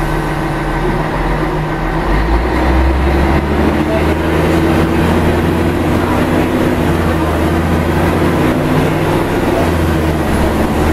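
Scania DSC1171 11-litre six-cylinder turbo diesel engine, rear-mounted, running under way as the bus drives, heard from inside the cabin. Its low note changes about two seconds in, then holds steady.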